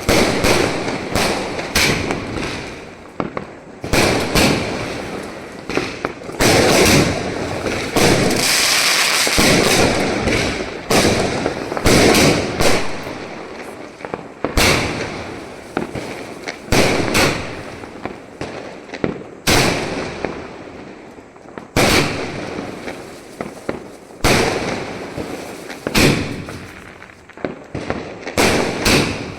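Multi-shot aerial firework cake firing: a long string of sharp bangs, roughly one or two a second, with crackling between them that is densest about a third of the way in.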